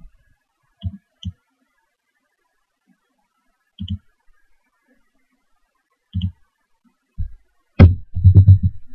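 Computer mouse clicking: a few single clicks spaced a second or more apart, then a louder run of quick knocks and clicks near the end.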